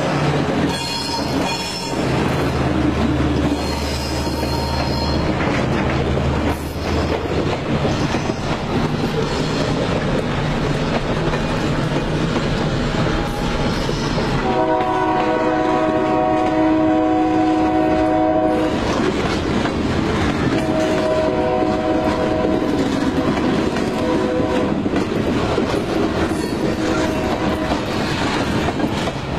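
Union Pacific freight train passing: the diesel locomotives' engines running low and steady at first, then the boxcars rolling and clattering over the rails. The locomotive's air horn blows one long chord about halfway through, and sounds again more faintly a few seconds later.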